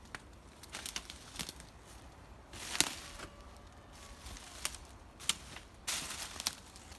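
Footsteps on dry forest litter, twigs and pine debris crackling and snapping underfoot at an uneven walking pace, with one louder snap about three seconds in.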